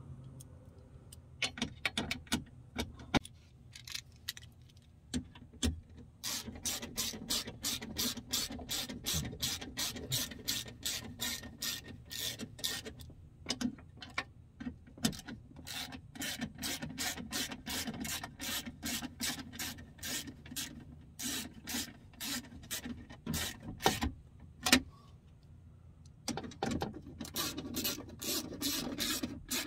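Hand ratchet clicking in long runs of quick clicks with short pauses between, as the bolts holding a window regulator motor to the door are tightened down.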